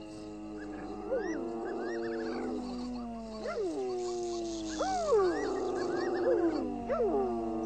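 Cheetah cubs calling at a kill: several overlapping whining calls that slowly fall in pitch, broken about five times by sharp yelps that swoop up and drop away.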